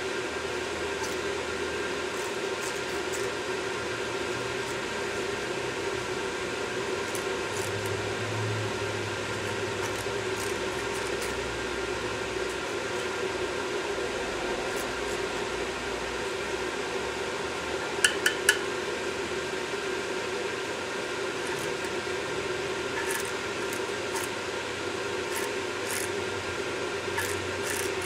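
A small metal pick scraping and ticking against a removed EGR valve, working built-up carbon out of its ports, over a steady background hum; three quick sharp clicks come about eighteen seconds in.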